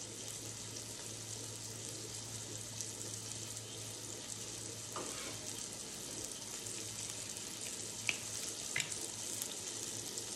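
Bacon frying on a griddle: a steady sizzle, with a few light clicks in the second half.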